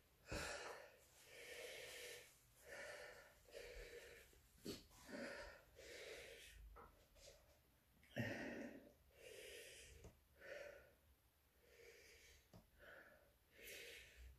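A man breathing hard through his open mouth in short, breathy puffs about once a second, panting against the burn of the hot chili peppers he has just eaten.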